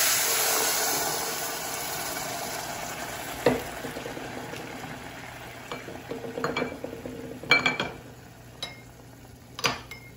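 Chicken broth poured into a hot pot of sautéed rice and carrots, hissing and sizzling loudly at first and dying down over the next few seconds. Later come a few sharp metallic clinks of utensils.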